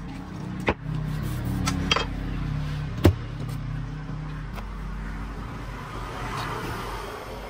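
A motor vehicle's engine running steadily, mixed with three sharp knocks of a heavy knife striking a large tuna on a wooden cutting table. The last knock, about three seconds in, is the loudest.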